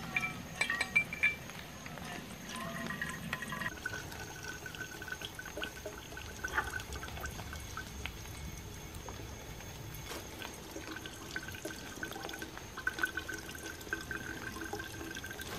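Filtered water trickling and dripping from a Sawyer gravity water filter into a stainless steel bottle, with a few sharp clicks in the first second or so.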